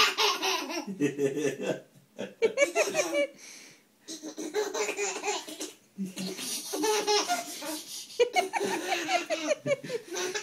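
A baby belly-laughing in repeated fits with short breaks between them, set off by a cat licking its toes.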